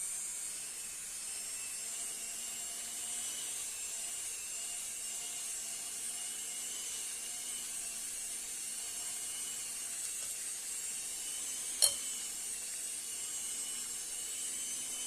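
Electric mixer running steadily on its lowest speed, beating cream cheese, with one sharp click about twelve seconds in.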